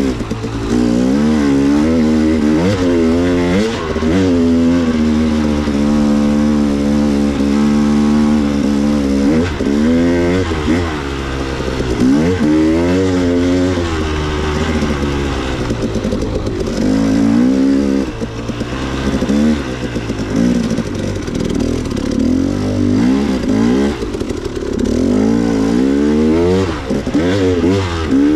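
A vehicle engine running under way, its pitch rising and falling again and again as the throttle is opened and closed, with a steadier stretch at one pitch for a few seconds early on.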